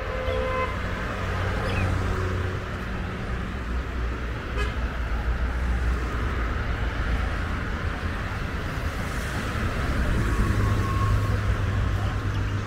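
Steady road traffic on a busy multi-lane avenue, cars passing with engine and tyre noise. A car horn sounds at the start and cuts off within the first second.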